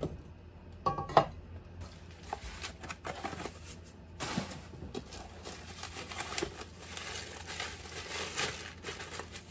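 Two or three knocks of cookware as a pot is set down. From about four seconds in, a continuous crackle of bubble wrap and packing paper as a glass pot lid is unwrapped.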